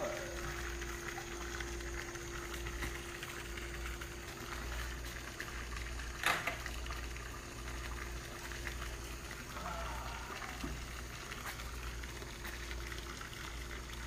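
A microwave oven with an iPhone 6 burning inside it: a steady hiss with faint crackling over a low steady hum. A single sharp click about six seconds in.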